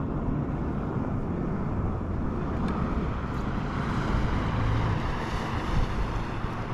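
Motorboat running at speed: a steady rush of outboard engine, wind and water.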